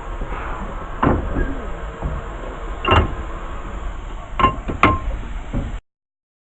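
Railway carriage rumbling along, with a few sharp metallic clanks; the sound cuts off abruptly near the end.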